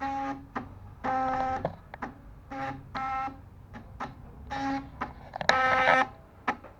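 Stepper motors of a small homemade CNC machine whining through a string of short moves: each move is a steady buzzing tone of a fraction of a second that starts and stops abruptly, with small clicks between moves. The longest and loudest move comes about five and a half seconds in.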